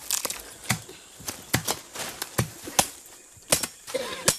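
A hand tool chopping at weeds and soil: a dozen or so sharp, irregular strikes, a few a second.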